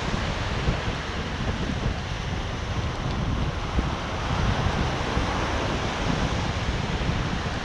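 Ocean surf breaking and washing up a sandy beach, a steady rushing noise, with wind buffeting the microphone in an uneven low rumble.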